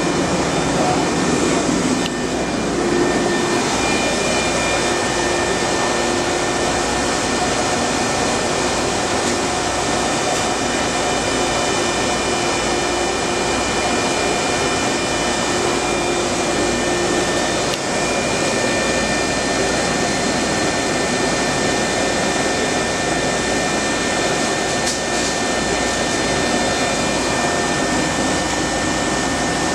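Studer S40 CNC angle-head cylindrical grinder running with a steady, even whir and a few faint steady tones above it.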